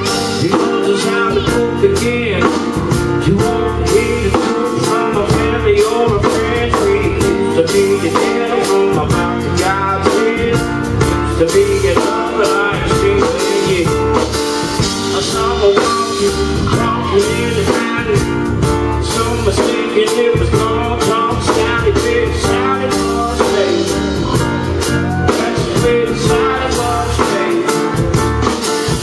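Live full band playing a song, with a male lead singer, guitar and a drum kit keeping a steady beat.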